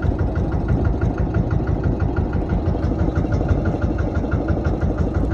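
Fishing boat's engine running at idle: a steady low rumble with a rapid, even ticking.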